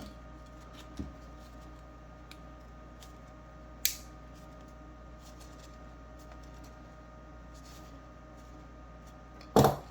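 Pliers pressing a 3D-printed plastic cover onto a carabiner body to seat it tight: a low knock about a second in, a few faint taps, a sharp click about four seconds in and a louder snap near the end, over a steady low hum.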